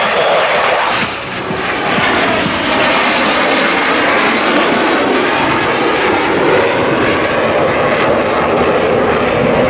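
F/A-18 Hornet's twin F404 turbofans: loud, steady jet noise from the fighter in flight during a rolling display, with a short dip in level about a second in.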